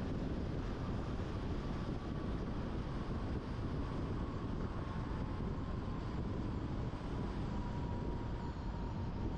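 Steady road noise from a car driving along a concrete highway: a low tyre and wind rumble, with a faint whine that sinks slightly in pitch.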